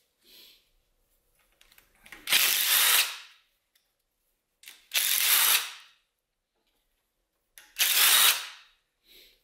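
DeWalt cordless impact driver spinning out bolts that were already cracked loose by hand. It runs in three bursts of about a second each, with small clicks between them.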